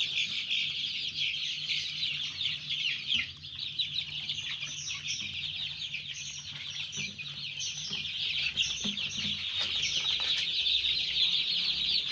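A crowded flock of 17-day-old Joper (ayam kampung super) chicks cheeping without a break, many short high falling peeps overlapping into one continuous chorus.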